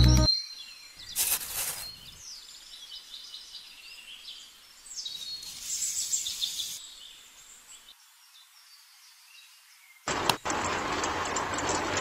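Dry cement powder is poured into the drum of a miniature DIY cement mixer with a soft hiss. About ten seconds in, a click sounds and the mixer's small electric motor starts, turning the drum with a steady running noise. Faint bird chirps can be heard beforehand.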